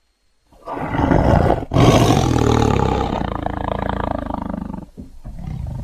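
Big cat roaring and growling: a deep, rough call begins about half a second in, breaks off briefly, runs on as one long roar of about three seconds, then dips and starts again near the end.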